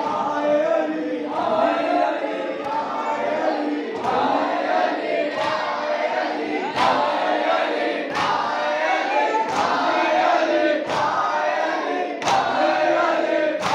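Crowd of men chanting a mourning noha in unison, with a loud, regular beat of hands striking chests (matam) about every one and a half seconds that comes in clearly about four seconds in.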